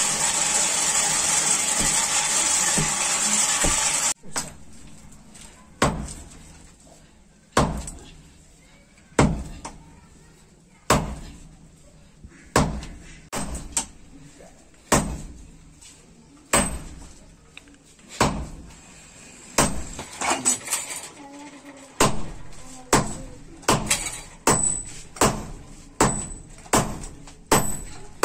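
Hammer blows on a red-hot iron bar on an anvil, evenly spaced about every second and a half to two seconds, quickening to about one a second near the end, each with a short metallic ring. Before the hammering, a loud steady rushing noise cuts off sharply about four seconds in.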